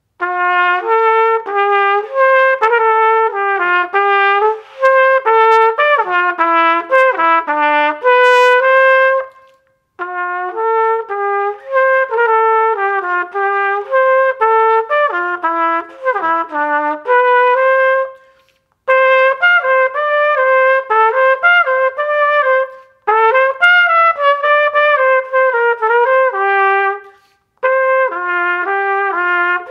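Austin Custom Brass Doubler cornet, silver-plated with two triggers, playing an unaccompanied melody of quick notes in five phrases with short breaks for breath between them.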